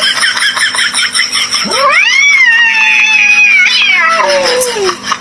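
Domestic cat caterwauling at its own reflection in a mirror: one long yowl that rises steeply about two seconds in, holds, then slowly falls away over about three seconds.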